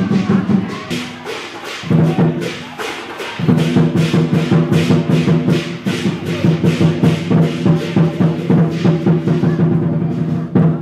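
Dragon and lion dance percussion: a drum and clashing cymbals struck about three to four times a second over a sustained low ringing tone that drops out briefly a couple of times.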